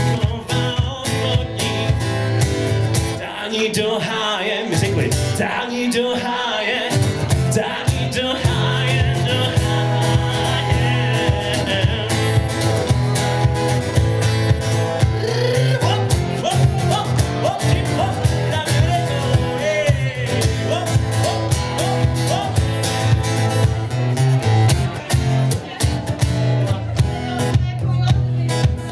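Live acoustic guitar strummed in a steady rhythm while a man sings.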